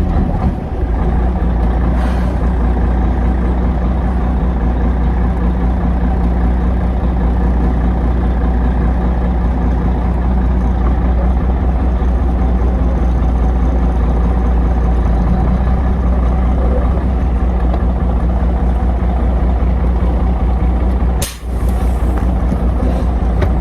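Heavy truck's diesel engine running with a steady low drone, broken near the end by a brief sharp click.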